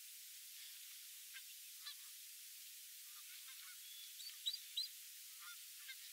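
Canada geese calling faintly over a steady hiss: scattered short, high calls, with two louder ones about four and a half seconds in. The sound is thin, with no low end.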